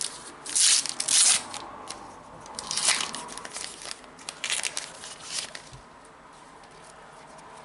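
Foil wrapper of a trading-card pack being torn open and crinkled, in several crackling bursts over the first five seconds, the loudest about a second in, then only light handling.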